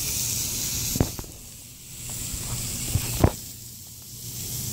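Burger patties sizzling on a Blackstone gas flat-top griddle, a steady hiss that dips twice, with two sharp knocks about a second in and again about three seconds in.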